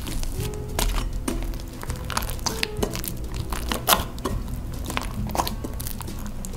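Hands kneading a wet, sticky bread dough (about 70% water) in a glass mixing bowl: irregular soft squelches and taps of dough and fingers against the glass, over background music.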